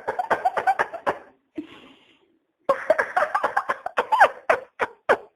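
A man laughing hard in quick bursts, then a breathy gasp for air and another fit of laughter that breaks into a few separate short bursts near the end.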